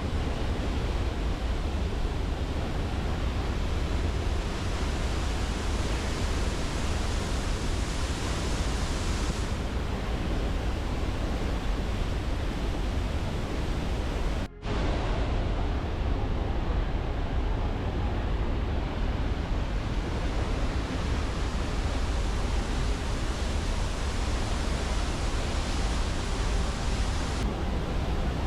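Steady roar of a large waterfall's rushing water, with a deep rumble underneath. It drops out for an instant about halfway through.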